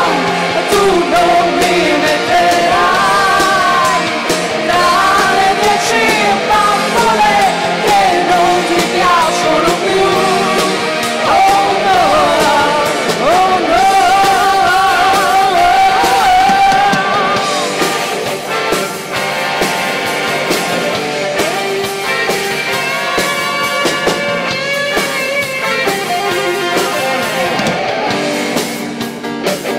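Live pop-rock band playing, with female voices singing over electric guitar; the sung line gives way to a more instrumental passage about two-thirds of the way through.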